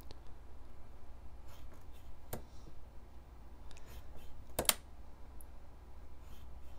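Hobby knife blade scoring and slicing through a thick plastic model-kit elevator on a cutting mat: faint scratching and ticking, with sharper clicks about two seconds and four and a half seconds in.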